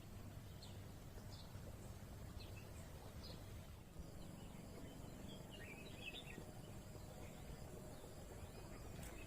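Faint birds chirping outdoors: short high calls dotted through, with a small cluster about five to six seconds in, over a low steady background rumble.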